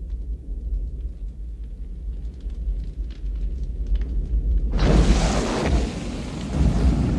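Movie-trailer fire sound effects: a deep steady rumble with faint crackles, then, about five seconds in, a sudden loud rush of a fireball bursting up, which keeps on.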